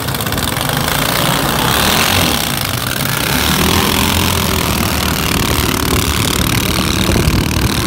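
Racing pump boats' engines running hard as the boats speed away, a loud continuous engine noise with a steady hiss above it.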